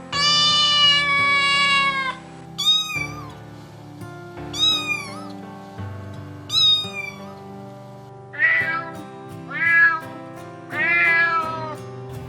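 Domestic cat meowing seven times. The first meow is long and drawn out, followed by three short high-pitched meows about two seconds apart, then three quicker meows that rise and fall near the end. Soft background music plays underneath.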